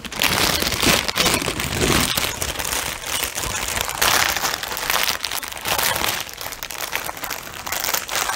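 Thin clear plastic bag crinkling and rustling as hands slide a bundle of small plastic bead packets into it: an irregular, continuous crackle with louder rustles now and then.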